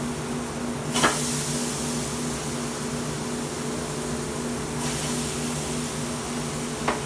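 Chopped onions and bell peppers sizzling in hot dark roux in a pot, the hiss louder for a few seconds after about a second in, over a steady hum. A sharp knock about a second in and two light clicks near the end.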